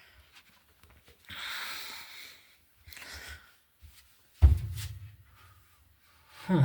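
Handling noise: a rustle, then a heavy low thump about four and a half seconds in and a second thump near the end.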